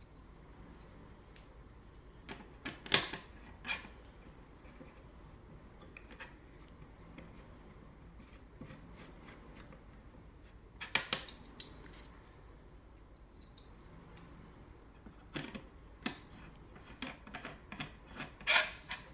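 Scattered light clicks, taps and rattles of small screws, frame parts and a hand tool being handled during assembly, coming in short clusters with quiet gaps between them.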